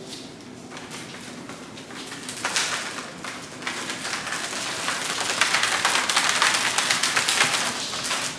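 Dense crinkly rustling made of many fine rapid crackles, swelling from about two seconds in, loudest near the end, then stopping suddenly.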